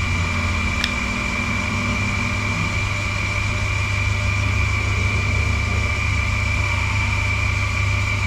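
Steady machine hum: a low drone with a constant high-pitched whine over it, and a single light click about a second in.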